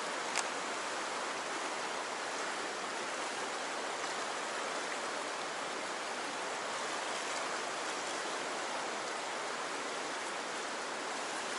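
Fast stream current rushing and swirling past a rock ledge: a steady, even rush of water. One short click about half a second in.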